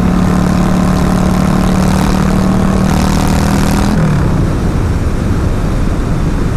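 2003 Honda Shadow's V-twin engine running steadily at highway speed, heard from the rider's helmet camera; about four seconds in the engine note falls away, leaving mostly wind rush.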